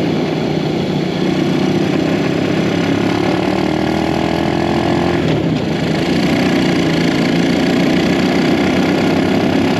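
Small four-stroke single-cylinder off-road engine running, its pitch climbing slowly for a few seconds, dipping briefly about five seconds in, then holding steady and a little louder. The riders say it isn't reaching the right RPM and suspect it is getting too much air or too much fuel.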